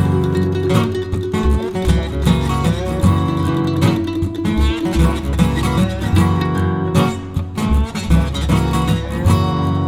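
Background music led by strummed acoustic guitar, with a steady bass.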